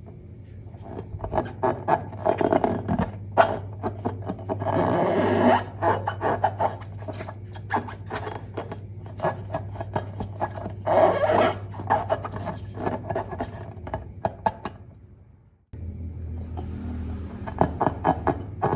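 Slime being squeezed and kneaded by hand, giving many quick sticky clicks and pops with two longer squelches along the way. A steady low hum runs underneath, and the sound cuts out briefly about three-quarters of the way through before the clicking resumes.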